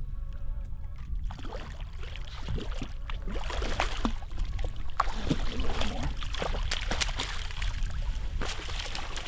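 Hooked redfish thrashing and splashing at the water's surface beside the boat, with irregular sharp splashes, as it is brought to the landing net. Wind rumbles on the microphone throughout.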